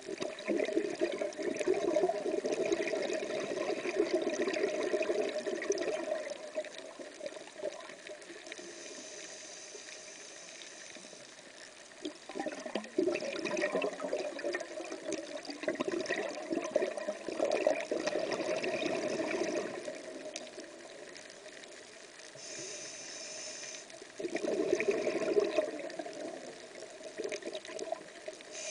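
Scuba diver breathing through a regulator underwater: long bubbling exhalations alternate with shorter hissing inhalations, a full breath every ten seconds or so.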